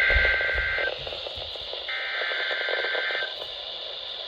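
NOAA Weather Radio sending the digital SAME header ahead of an alert: two bursts of rapid data tones, about a second each with roughly a second between them, the coded start of a severe thunderstorm warning.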